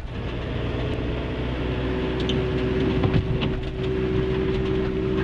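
Car running on the road, heard from inside the cabin: a steady engine and road hum, with a steady whine joining about halfway through.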